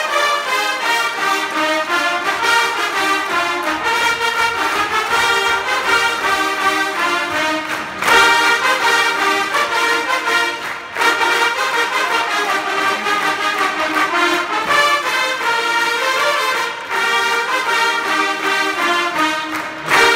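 A large trumpet ensemble playing a tune together in full harmony, with brief breaks between phrases.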